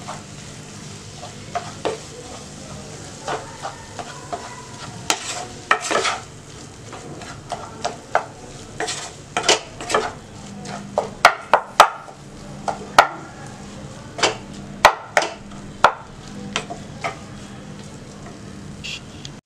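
Wooden spatula stirring and scraping minced chicken keema stuffing in a nonstick pan, with irregular sharp knocks against the pan over a light frying sizzle. The knocks come more often in the second half.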